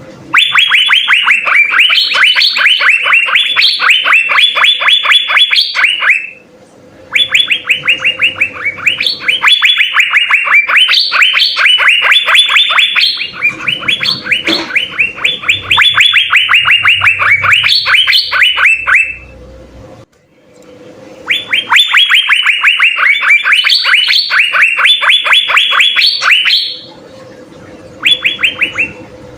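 Asian fairy-bluebird (cucak biru) singing in a fast, excited run: rapid strings of sharp falling notes, about five a second, in long phrases broken by three short pauses.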